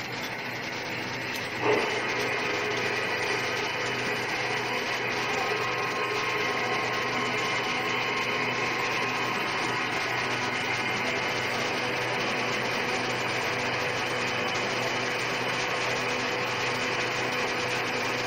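Centre lathe starting up: a short clunk about two seconds in as the spindle is engaged, then the machine runs steadily with an even gear whine.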